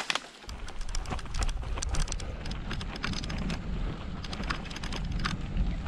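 Gravel bike rolling over an unpaved dirt-and-grit track: a rapid, irregular crackle of tyres crunching and flicking small stones, with a low rumble that sets in about half a second in.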